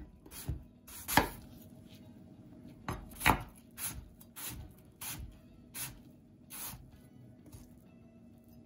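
Chef's knife chopping peeled apple into cubes on a wooden cutting board: a string of uneven knocks of the blade on the board, two louder ones about a second and three seconds in, stopping a couple of seconds before the end.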